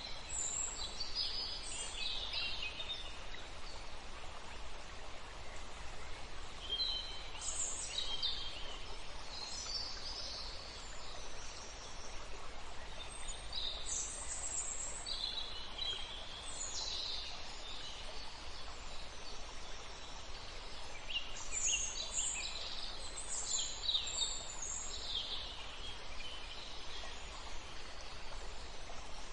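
Songbirds singing in short, bright phrases that come in clusters every few seconds, over a steady outdoor background hiss.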